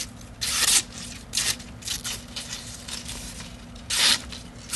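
Sheet of paper rustling in five short bursts that sound like tearing. The loudest come about half a second in and about four seconds in, with weaker ones in between.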